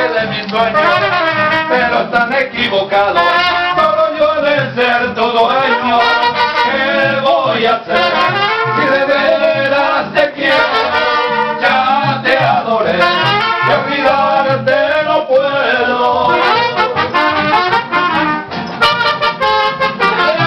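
Live band music, a brass-led melody played without pause.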